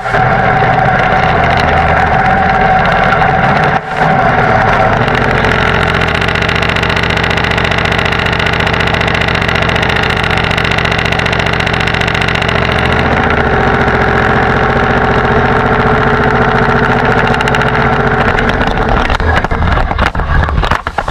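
Tractor diesel engine running steadily, with a short drop in sound about four seconds in and a rougher, uneven stretch near the end.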